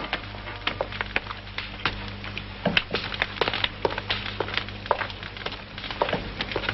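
Footsteps of two people walking across a stone floor: a string of irregular knocks and taps, about three a second, over a low steady hum.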